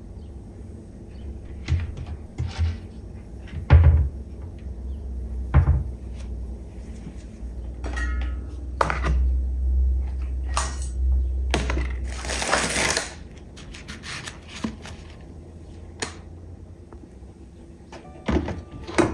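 Kitchen handling sounds: a string of separate knocks and thunks, like cupboard doors closing and items being set down, with a longer rustling or scraping stretch about twelve seconds in. A steady low hum runs underneath.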